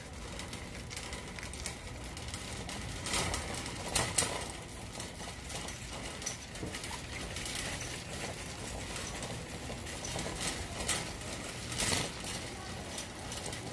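Wire shopping cart rolling over a concrete warehouse floor, its wheels and basket rattling steadily, with a few louder clatters about three to four seconds in and again near the end.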